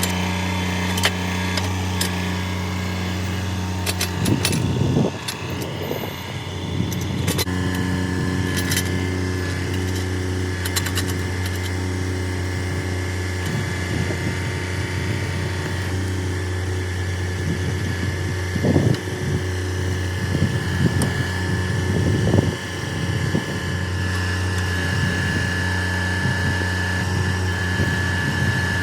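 A machine's engine running steadily at one speed while a dead dogwood tree is dug up, with scattered knocks and crunches of the digging, the loudest a few seconds in and twice near the middle.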